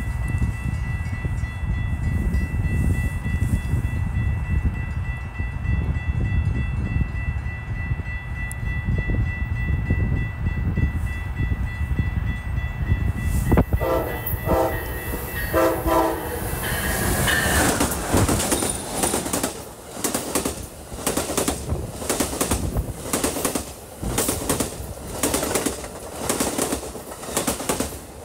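Amtrak passenger train sounding its horn in two short blasts on approach, then passing at speed with its wheels clicking rhythmically over the rail joints. A low rumble fills the first half before the horn.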